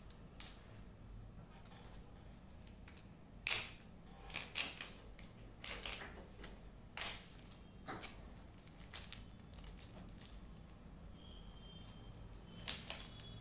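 Clear adhesive tape crackling and crinkling in short irregular bursts as a strip with paper stickers stuck to it is lifted and handled.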